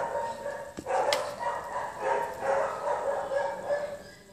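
A dog whining in long, wavering cries that fade near the end, with a sharp click about a second in.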